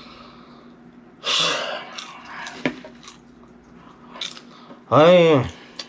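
A man's wordless vocal sounds: a breathy exhale about a second in, a small click, then near the end a short voiced sound whose pitch rises and falls.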